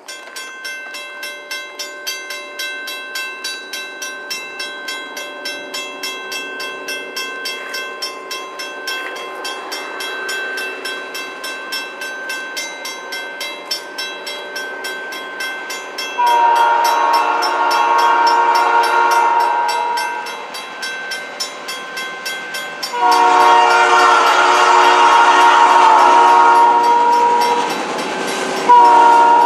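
A railroad crossing bell rings steadily at about two to three strokes a second. Then the air horn of Canadian Pacific FP9A diesel locomotive 1401 blows two long blasts, and a third begins near the end.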